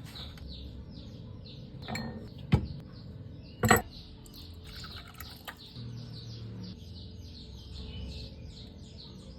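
Bird chirping steadily, short high notes repeated about five times a second, with two sharp clinks about a second apart, about two and a half and nearly four seconds in, which are the loudest sounds.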